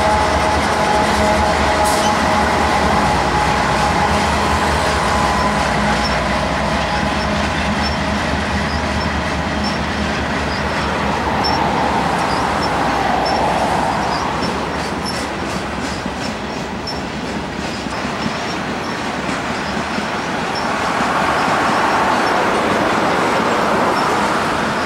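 Canadian Pacific GE AC4400CW diesel locomotive going by with its engine running, then a long train of covered hopper cars rolling past with a steady rumble and faint wheel clicks over the rail joints. Road vehicles pass in front twice, about halfway through and near the end.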